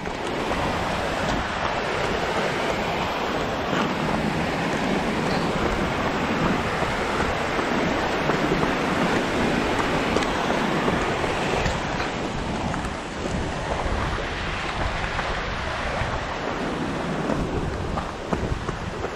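Mountain stream rushing over rocks, a steady, unbroken roar of water.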